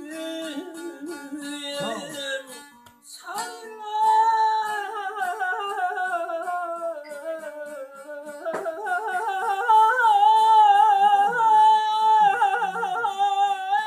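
A man's voice singing a long, wordless mugham line: held notes wavering with quick trills and ornaments, a short break about three seconds in, then rising and growing louder near the end.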